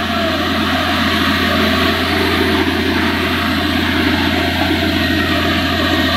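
Borewell drilling rig engine running steadily with a constant low drone, and water gushing and spraying out of the borehole.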